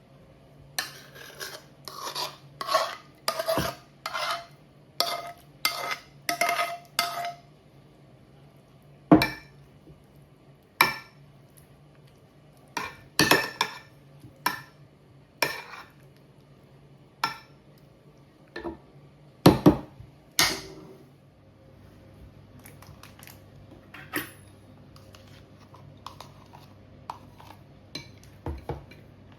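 Kitchen utensils clinking and scraping against dishes or a pan while food is prepared. A run of quick strokes, about two a second, comes in the first seven seconds, then scattered single knocks and clinks.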